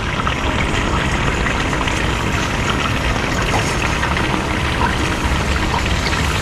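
Water from a garden hose running steadily into a downspout's PVC drain pipe, over a steady low rumble.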